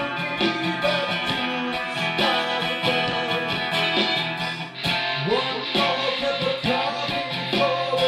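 Acoustic guitar strummed in a steady rhythm, with a man singing over it from about five seconds in.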